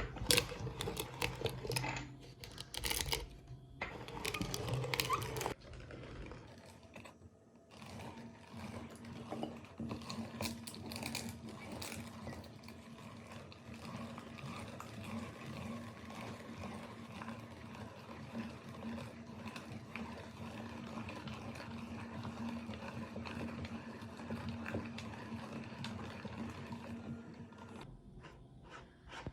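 Electric meat grinder motor running with a steady hum while crackling and clicking through Oreo ice cream. The first few seconds hold louder knocks and clatter, and the motor stops near the end.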